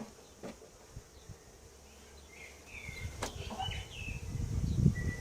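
Honeybees humming faintly around an opened Langstroth hive, with a sharp knock about three seconds in and short bird chirps through the second half.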